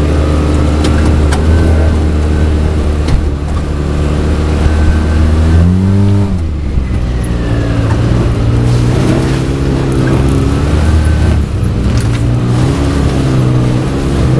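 Off-road vehicle engine running along a rough dirt trail; about six seconds in it revs up and then holds a higher steady note. A few sharp knocks come through, typical of the vehicle jolting over bumps.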